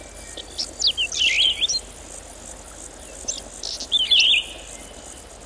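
Birdsong: short warbling phrases of high, wavering whistles, about a second in and again about four seconds in, over a steady high hiss.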